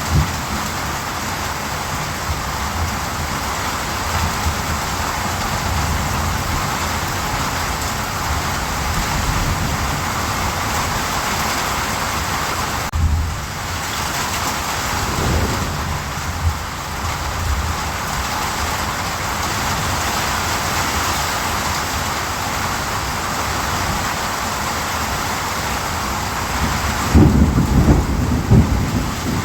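Steady heavy rain falling, an even hiss throughout. Deep low rumbles swell under it about halfway through and again, more strongly, near the end.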